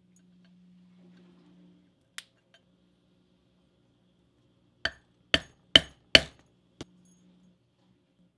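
Four sharp strikes of a mallet on a metal setting tool held against the leather collar, about half a second apart, setting the hardware by the buckle; a single lighter tap comes a few seconds before them.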